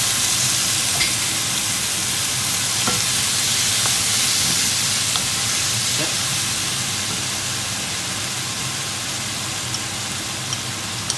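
Beef and broccoli sizzling hard in a hot wok with the sauce just added, while a wooden spatula stirs and scrapes them around the pan. The sizzle slowly eases, and small pops and crackles start near the end.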